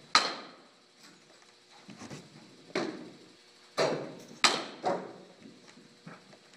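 Baseballs smacking into leather gloves during pitching and catching: a sharp knock right at the start, the loudest, then a quieter stretch and about four more knocks a few seconds in, each dying away in the room's echo.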